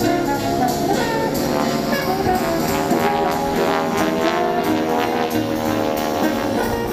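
Instrumental music led by brass, with several steady notes sounding together.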